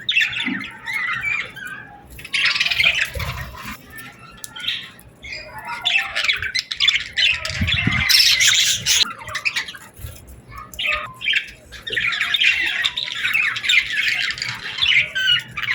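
A flock of birds chirping and squawking together in dense, overlapping chatter, with a louder stretch of calls about eight seconds in.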